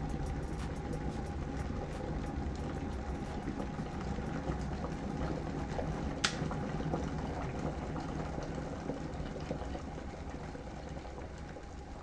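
GOURMETMAXX glass electric kettle at a rolling boil, the water bubbling steadily. A single sharp click about halfway through marks the kettle switching itself off at the boil, after which the boiling slowly dies down.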